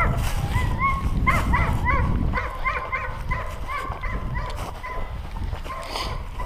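Dog yipping and whining in a quick run of short, high-pitched yelps. A low rumble underlies the first two seconds or so.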